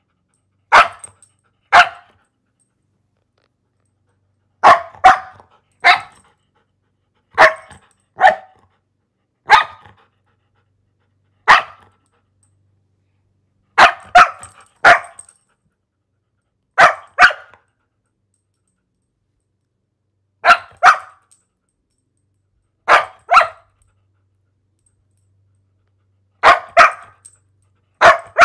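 A dog barking: about twenty short, sharp barks, mostly in pairs, coming every one to three seconds with dead silence between them.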